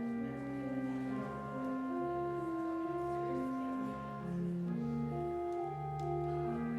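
Pipe organ playing a slow prelude: sustained chords of held notes that change every second or so over a steady bass line.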